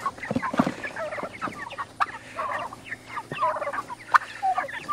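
A crate of chickens making many short, chirping calls, with a few knocks from the crate as it is carried.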